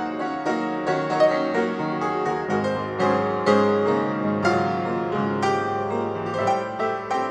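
Gentle solo piano music with notes struck at a steady, unhurried pace.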